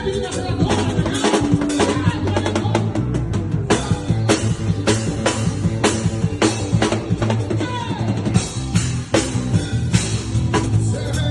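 Music: a drum-kit beat of regular kick, snare and rimshot strokes over a steady bass line.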